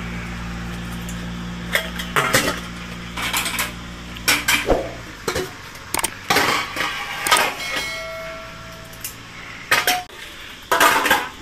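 Metal ice cream scoop clinking and scraping against stainless-steel ice cream tubs and lids as ice cream is dug out: about a dozen irregular clinks, some ringing briefly.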